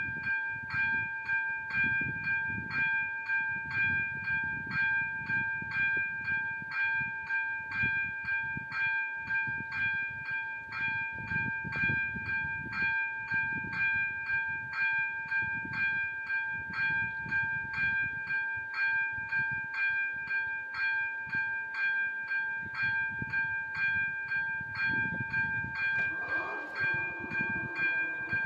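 Railway level crossing warning bell ringing in rapid, even strikes, about two and a half a second, with a low uneven rumble beneath it. The bell is sounding because a train is due. A brief wavering tone joins in near the end.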